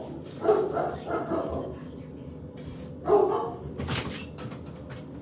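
Dogs barking off-camera in a small room, several short barks in the first second and a half and another about three seconds in, followed by a few sharp knocks around four seconds in.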